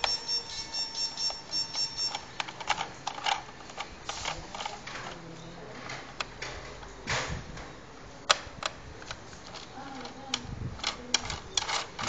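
Irregular plastic clicks and taps from the casing of a Clancor handheld terminal being handled and pried at with a small tool, with one sharper click a little past eight seconds and a quick run of taps near the end.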